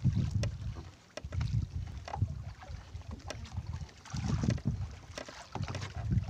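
Wind buffeting the microphone in gusts at sea, with a few light knocks.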